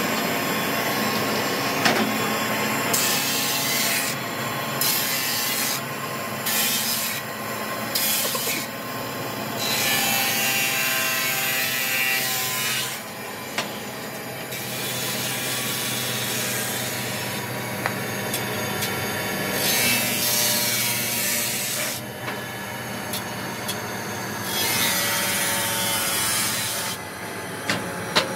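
Table saw running steadily and cutting curved brake lining blocks: four short cuts in quick succession, then several longer cuts with the blade spinning freely between them.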